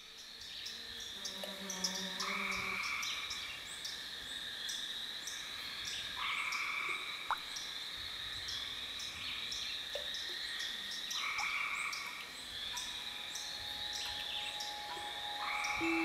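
Frogs calling: a short croaking call repeats every four to five seconds over a steady high-pitched chorus of rapid ticks and trills. There is one sharp click about seven seconds in.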